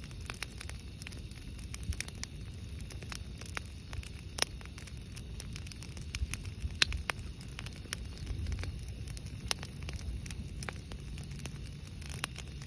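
Brush-pile campfire of dry branches burning, crackling with irregular sharp pops and snaps, a few of them louder, over a steady low rush.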